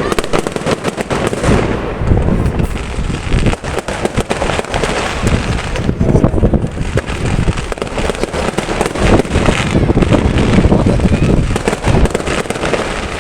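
Aerial fireworks display: a dense, continuous barrage of booming shell bursts mixed with rapid crackling, loud and irregular throughout.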